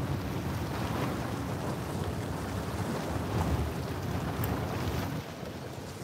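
Wind buffeting the microphone over small waves washing against shoreline rocks; the low wind rumble eases about five seconds in.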